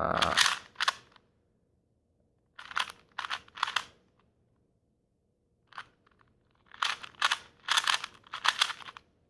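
Sandpaper rubbed in short scraping strokes against the plastic edges of a 2x2 speed cube, sanding away molding flash. The strokes come in bursts, with a longer run near the end.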